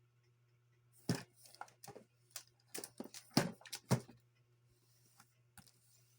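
Unboxing handling: a run of sharp knocks, clicks and rustles as packaging and plastic parts are handled, starting about a second in and settling after about four seconds, over a steady low hum.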